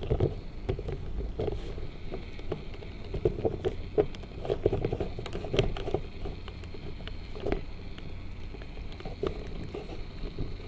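Can of expanding spray foam being emptied, sputtering in irregular short pops, with cloth rubbing close against the microphone.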